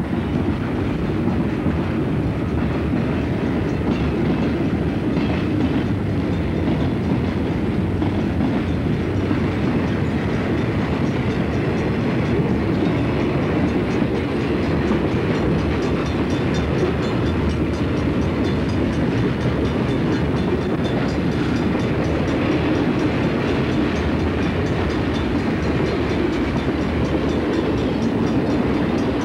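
Freight cars of a Southern Pacific train rolling past close by: a steady, loud rumble and clatter of steel wheels on the rails, with a faint regular clicking coming in about halfway through.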